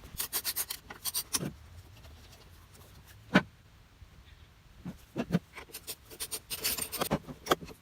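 Short scrapes and clicks of hands and tools working on a push mower's engine, with one sharp knock about three and a half seconds in.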